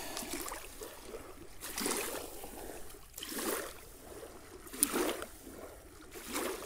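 Small waves lapping on a pebbly lake shore, a soft wash about every second and a half, with one short click near the end.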